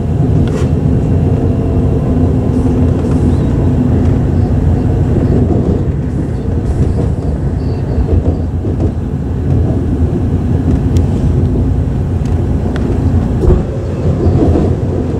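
Passenger train heard from inside the carriage while it runs: a steady rumble of wheels on the track and running gear, with a few faint clicks.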